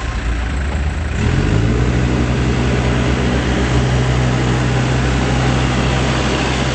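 Case 580M backhoe loader's diesel engine running. About a second in it revs up and then holds at a steady higher speed.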